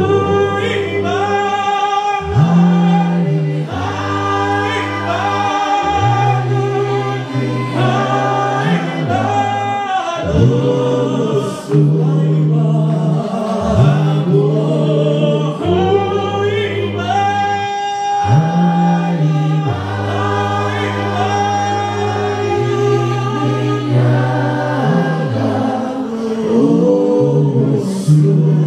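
Male vocal group of five singing an isiZulu gospel song unaccompanied through microphones, in close harmony, with a deep bass voice holding long low notes under the lead and the upper parts.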